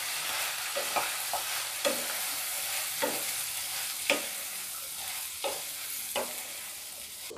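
Fried prawns and vegetables sizzling in hot oil and sauce in a non-stick kadai, stirred with a wooden spatula that scrapes the pan in short strokes about once a second.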